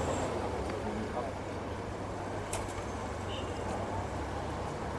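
City street ambience: a steady low rumble of traffic with indistinct voices, and one sharp click about halfway through.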